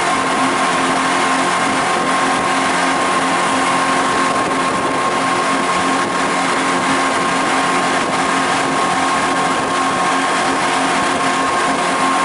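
Speedboat engine running steadily while under way: a constant, loud drone with a rushing noise over it, unchanging throughout.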